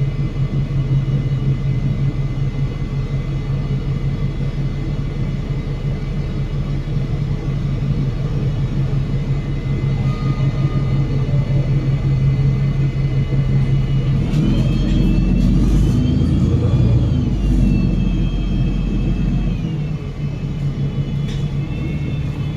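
Cabin sound of a Euro VI Enviro500 MMC double-decker bus under way: its Cummins L9 diesel gives a steady low drone. About two-thirds of the way through, the rumble grows and a whine from the drivetrain, likely the Voith DIWA automatic gearbox, rises, then drops and holds before easing off as the bus pulls away.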